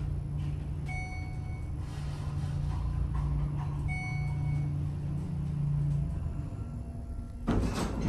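Schindler elevator car travelling with a steady low hum, two short electronic floor-passing beeps about three seconds apart, then the doors starting to slide open near the end as the car arrives.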